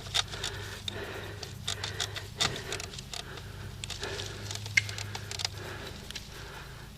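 Irregular footsteps with rattling and rustling of gear, as a player carrying the camera moves about.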